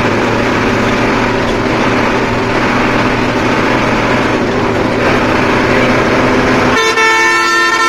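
A bus's engine and road noise, heard from inside the cab while it runs at speed. Near the end a horn with several tones sounds steadily for about a second.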